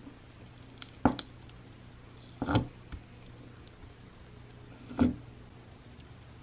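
Clear slime being poked and pressed down into its jar with a finger, giving a few sharp clicks and pops as pockets of air burst: a pair about a second in, another about two and a half seconds in, and a last one about five seconds in.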